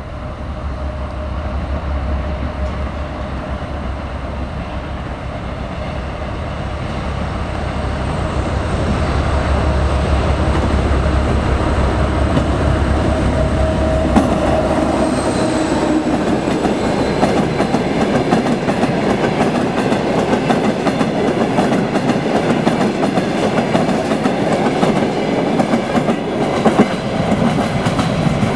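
ChME3 diesel-electric shunting locomotive's six-cylinder diesel engine running under load with a deep rumble as it approaches and passes, growing louder. From about halfway the flat wagons behind it roll by, their wheels clicking and clattering over the rail joints.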